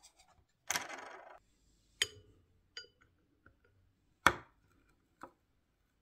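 Small clicks and taps of a plastic key fob shell being handled: a short scraping rub about a second in, then a few sharp separate clicks, the loudest about four seconds in, as a screwdriver is set to the coin cell to pry it out.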